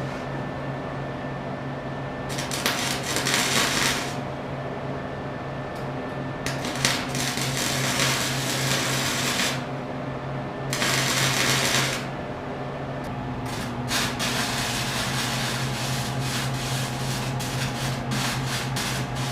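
A power grinder runs on steel with a steady motor hum. It bears down in three short spells of abrasive grinding, then grinds continuously from about two-thirds of the way through.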